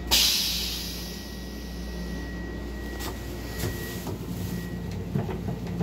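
A Metro-North M7 railcar's stainless-steel toilet flushes: a sudden rushing whoosh that fades within about a second. The railcar's steady hum runs underneath. Later come a few light knocks as a hand handles the plastic seat.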